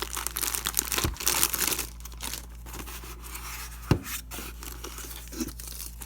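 Packaging being torn and crinkled open by hand, with two sharp knocks about a second in and near the middle.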